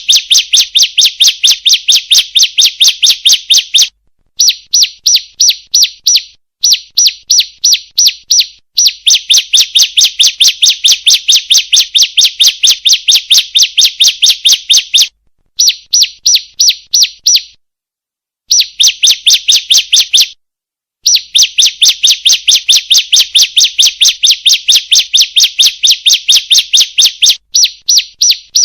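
Female ciblek (prinia) calling: a rapid series of sharp, high chirps, about three to four a second, in long runs broken by brief pauses. It is a lure call used to provoke ciblek to sing.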